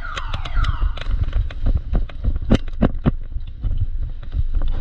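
An electronic siren sounds a repeating falling wail, a little under twice a second, signalling the end of the airsoft game, and stops about a second in. It is followed by a scatter of sharp clicks and knocks, loudest around two and a half to three seconds in, over a steady low hum.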